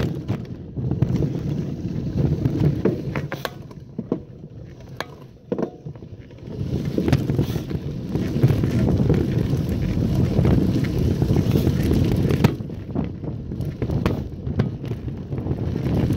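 Wind buffeting the microphone over the rumble of mountain-bike tyres on a rough dirt track, with the bike clattering and knocking over bumps. It eases off for a couple of seconds about a third of the way in, then builds up again as the ride goes on.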